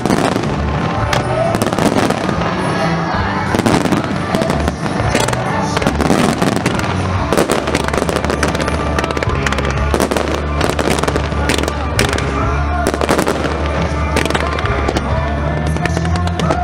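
A fireworks display going off: many sharp bangs and crackles in quick succession, with music playing underneath.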